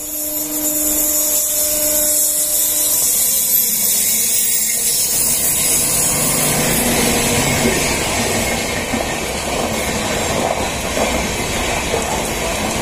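Passing electric train on the adjacent track: a steady whine from the approaching WAG-9 electric locomotive in the first few seconds, then the rumble and clatter of LHB passenger coaches rolling past close by.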